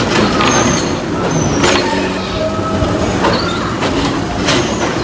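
Loud, dense rubbing and bumping noise from a chest-mounted action camera worn while running and climbing through a play structure, with irregular thumps. Short high squeals, some sliding in pitch, cut through it now and then.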